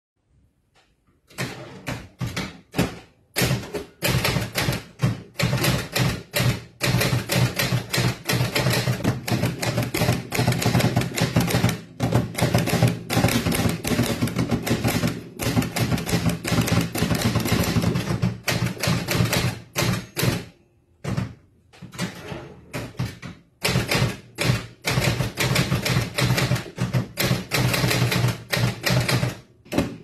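Olivetti Lexikon 80 manual typewriter being typed on: a fast, continuous run of keystrokes, the type bars striking the paper, starting about a second in. There is a short lull a little after twenty seconds.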